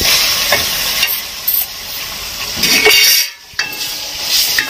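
Ginger-garlic paste sizzling in hot oil in a wide pan, being fried off to cook out its raw smell while a wooden spatula stirs and scrapes it. The sizzle swells just before three seconds, cuts out briefly, then resumes as raw chicken pieces go into the pan near the end.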